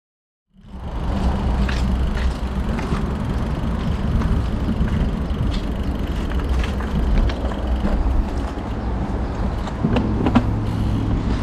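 Riding noise from a road bike heard through a bike-mounted action camera: a steady low rumble of wind and tyres on the road, with scattered clicks and rattles. It starts about half a second in.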